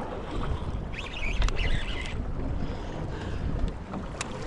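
Wind buffeting the microphone over choppy open water, a steady low rumble, with a brief higher-pitched sound about a second in and a couple of sharp knocks.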